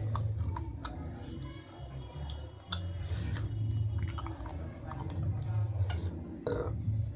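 Close-miked chewing of a person eating, a soft pulsing sound as the jaw works, broken by frequent small wet mouth clicks and a couple of louder smacks.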